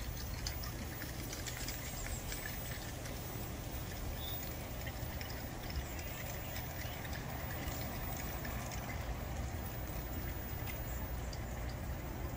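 Steady outdoor background noise: a constant low rumble with scattered faint ticks, and no distinct event.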